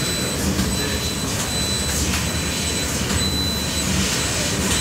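CNC laser cutting machine running as it cuts a steel sheet: a steady hiss over a low hum, with a thin steady high whine and a few faint ticks.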